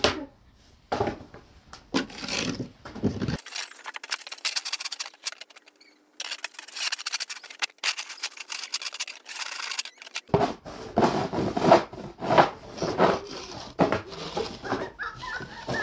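Plastic snow shovels scraping and pushing snow along the ground in repeated strokes, with a short pause about five to six seconds in.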